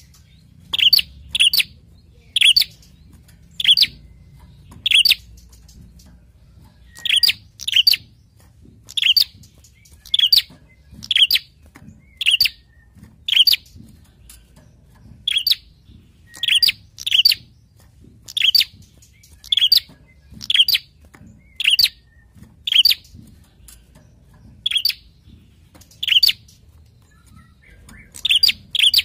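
Caged prenjak calling: a steady series of loud, sharp, high chirps, about one a second, some in quick pairs, with short pauses between runs.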